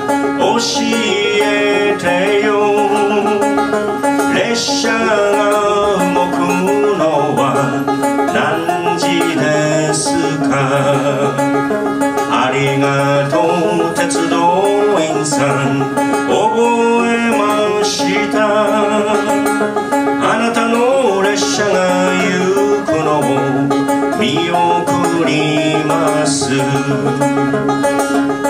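Open-back banjo picked in a steady rhythm, with a man singing along.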